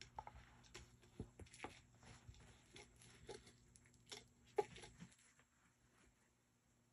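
Faint scattered taps, clicks and rustles of an empty plastic catnip bottle batted and pushed around on carpet by a cat. The loudest tap comes a little after four and a half seconds in, and the tapping dies away about five seconds in.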